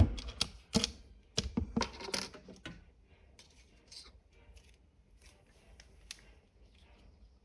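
A locked drawer knocking and rattling as it is tugged against its lock: a cluster of sharp knocks in the first three seconds, then only faint light clicks.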